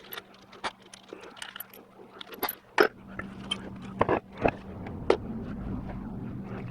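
Scattered metal clinks and knocks as a 4L80E transmission's front pump is opened up and its parts handled, a few sharp and loud. A steady low hum comes in about three seconds in.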